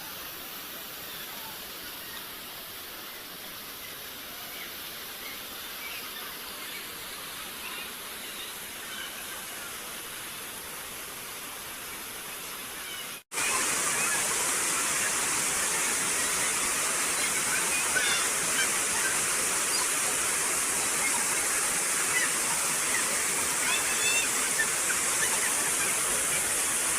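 Steady rush of river water and waterfalls. About halfway through it cuts off for an instant and comes back clearly louder, with faint short chirps over it.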